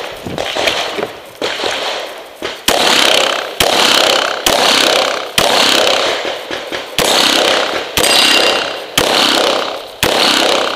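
A string of semi-automatic pistol shots during an IPSC course of fire, about one a second from about two and a half seconds in, each shot followed by a ringing echo off the bay's concrete walls. A few quieter knocks come before the first loud shot.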